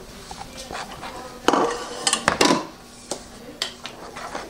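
Metal wire whisk beating cake batter in a plastic mixing bowl, clattering and tapping against the bowl, with the loudest run of strokes between about one and a half and two and a half seconds in, then lighter scattered taps.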